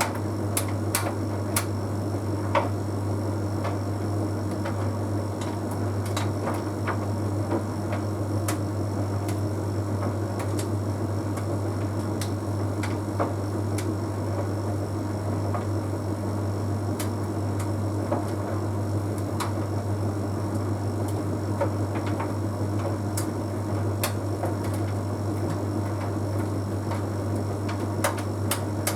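Bosch Series 6 heat pump tumble dryer running mid-cycle: a steady low hum over a constant whir, with scattered light clicks and ticks from the tumbling half load of synthetic clothes in the drum.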